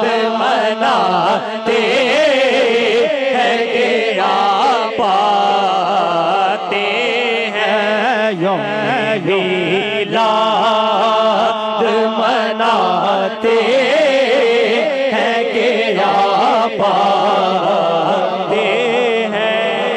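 Man singing a naat, an Urdu devotional poem, through a microphone in a wavering, ornamented melody, over a steady low drone held by a backing chorus of men's voices.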